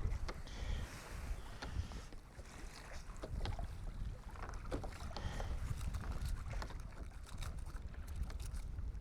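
Wind rumbling on the microphone and water sloshing against a sea kayak's hull, with scattered small clicks and knocks throughout.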